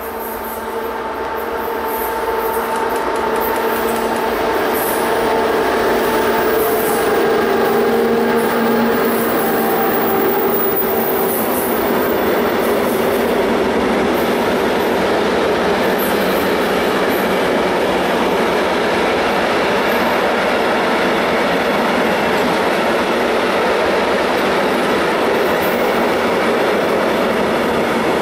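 EU07 electric locomotive approaching and passing with a long intermodal container train, growing louder over the first several seconds, with a steady whine that dies away after about ten seconds. After that comes the even rolling noise of container wagons going by.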